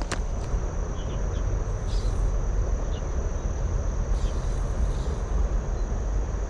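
Steady outdoor background rumble with a thin, steady high-pitched insect drone over it and a few faint chirps.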